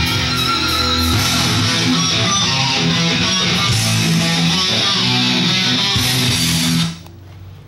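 Guitar-driven rock music that cuts off abruptly near the end.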